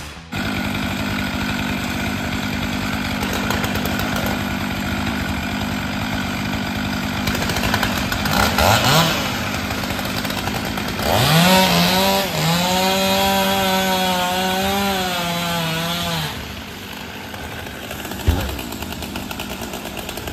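Chainsaw running steadily, revving up about eight seconds in and again at about eleven, held at high revs for several seconds, then dropping back. A single thump near the end.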